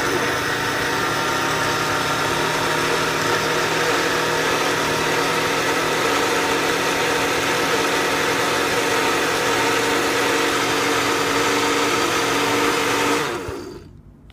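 Cuisinart SmartPower countertop blender running steadily, its motor whirring as it churns a thick smoothie mix; near the end it is switched off and winds down.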